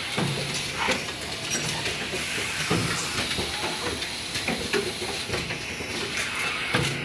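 Automatic printing and labeling line running: a steady hiss of machinery with frequent irregular clicks and knocks from its moving parts.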